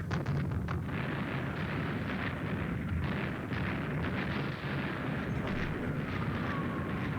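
World War II battle sound played back: a dense, steady barrage of artillery explosions and rapid gunfire cracks, with a faint falling whistle near the end.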